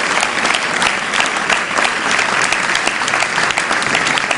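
An audience applauding steadily: many hands clapping in a steady dense patter.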